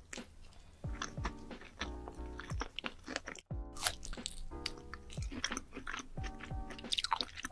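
Close-miked eating sounds: wet, crunchy bites and chewing of fruit, strawberries among it, as a run of sharp crunches that is busiest near the end. Light background music plays underneath.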